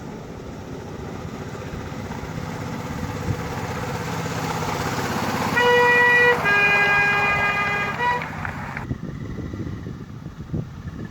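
Petrol-hydraulic miniature railway locomotive running and growing louder as it nears, then sounding its horn: a short higher note, a longer lower note and a brief final toot. The sound drops away abruptly about two-thirds of the way through.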